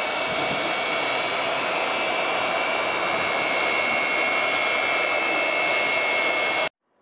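Jet aircraft engines running steadily: a high whine over a rushing noise, which cuts off suddenly near the end.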